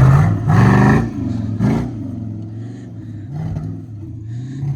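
Off-road vehicle's engine revving in quick bursts, pitch rising sharply twice in the first two seconds, then settling to a lower steady run with small blips of throttle.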